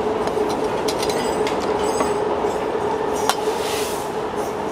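Steady drone of a passing road vehicle with a low hum, swelling at the start and easing off near the end. A single sharp click about three seconds in.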